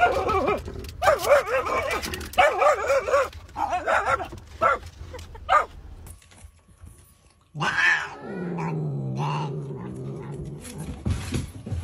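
A dog vocalizing in a run of short calls whose pitch wavers up and down for about the first six seconds. After a short lull, a lower, longer drawn-out sound with a slightly falling pitch follows.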